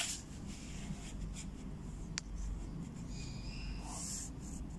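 Faint scratching and rubbing of a pencil and a steel ruler on paper, with one sharp click about two seconds in.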